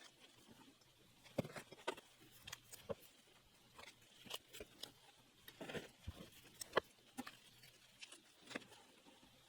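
Scattered light clicks and taps of small objects being handled, picked up and set down on a counter.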